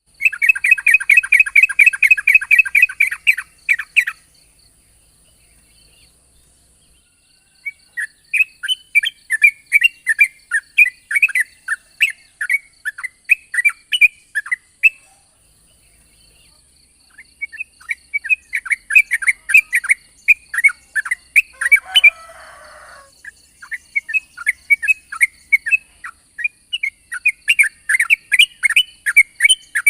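Yellow-vented bulbul (trucukan) singing long rolling runs of rapid chirpy notes, in three long bursts with short pauses between.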